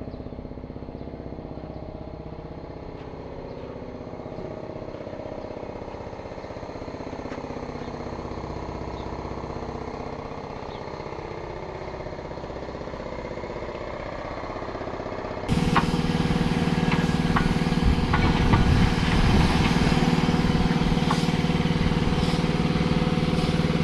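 An engine running steadily. About fifteen seconds in, an abrupt cut brings a much louder engine running, with scattered knocks and clatter.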